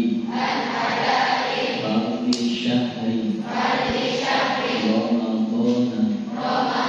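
Mosque congregation chanting together in unison in long, drawn-out phrases of about two seconds each, with short breaks between them, closing on a chanted "Amin".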